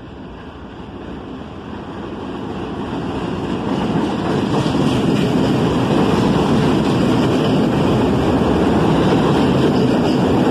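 R68 subway train approaching and running past on the elevated track, its wheels rumbling on the rails. The rumble grows louder over the first four seconds, then holds steady and loud as the cars go by.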